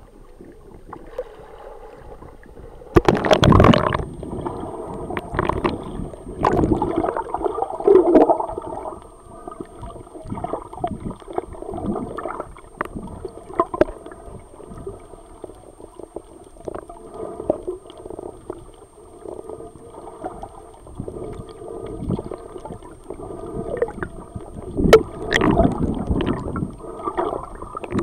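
Muffled gurgling and sloshing of water heard by a camera held at and below the sea surface while snorkeling, with louder rushes of water about three seconds in and again near the end.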